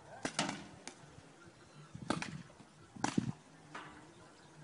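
Paintball markers firing: sharp pops in small clusters, one burst near the start, another about two seconds in and another about three seconds in, with a single pop in between.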